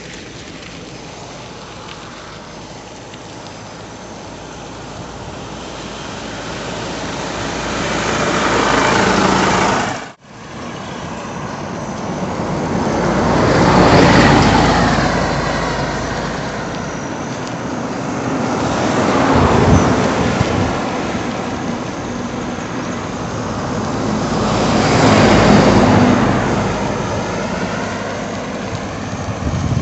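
Highway traffic passing close by one vehicle after another, a coach bus among them: each pass is a swelling, then fading rush of engine and tyre noise. The first pass builds up and cuts off suddenly about ten seconds in, and three more follow.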